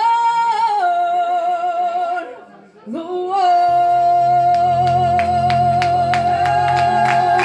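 Solo singer holding long notes into a microphone, with vibrato: one note for about two seconds, a brief breath, then a second note held for about four seconds to the close of the phrase. Low backing music comes in under the second note.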